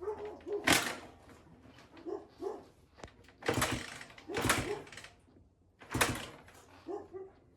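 Attempts to start a 1980 Honda XL185s single-cylinder engine: four loud, short bursts at uneven intervals as it is turned over, without settling into a steady run.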